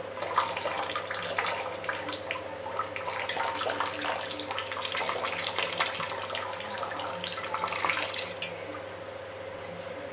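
Water running and splashing, full of small spatters, starting abruptly and stopping about a second and a half before the end.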